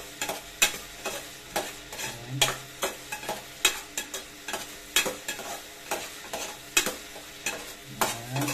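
Ground beef sizzling as it sautés in an aluminium pot, stirred with a metal spatula that scrapes and knocks against the pot about once or twice a second.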